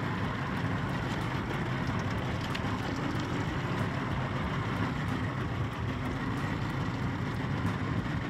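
Boat's outboard engine idling with a steady low hum, under wind and water noise.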